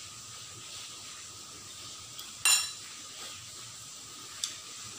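Metal cutlery striking tableware while eating: one bright ringing clink about halfway through and a lighter clink near the end, over a faint steady hum.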